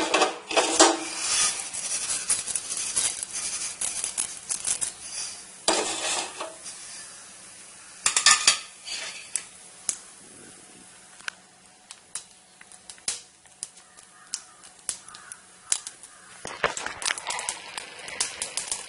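Mustard seeds spluttering in hot cooking oil in a pan: scattered sharp pops and crackles, densest in the first few seconds and again about eight seconds in, sparser in between.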